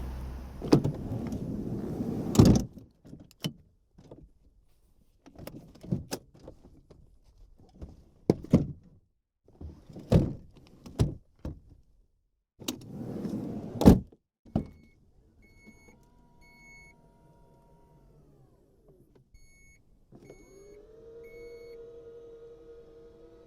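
2022 Chrysler Voyager minivan doors and electrics: a rush of noise fading over the first two seconds, then a string of separate clicks, latch snaps and door thunks, one led by a short swelling rush about thirteen seconds in. Later come sets of three short beeps alongside an electric motor whirring, whose pitch falls as it winds down, then a motor starting again about twenty seconds in with its pitch slowly rising.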